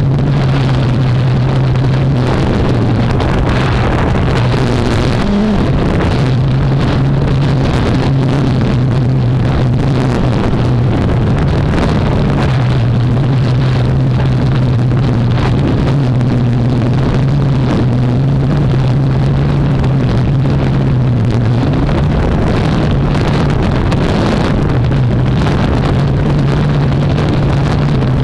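Blade 350QX quadcopter's brushless motors and propellers droning steadily, the pitch wavering slightly up and down, with wind buffeting the microphone.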